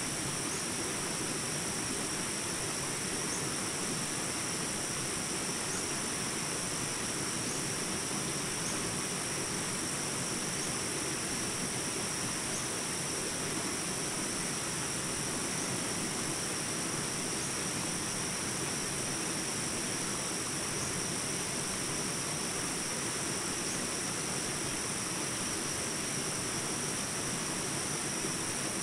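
Steady outdoor ambience: a constant high insect chorus over an even rushing noise, with no change through the stretch.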